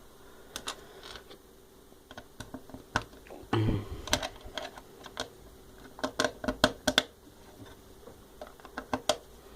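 Lego Technic pieces clicking and clattering as they are handled and pressed together by hand: irregular sharp clicks, busiest about six to seven seconds in, with a short soft knock about three and a half seconds in.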